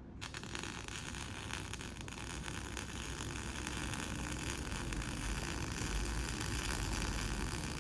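MIG welding arc striking about a quarter-second in, then a steady sizzling crackle as the wire burns into the steel sheet. A low rumble under it grows louder toward the end.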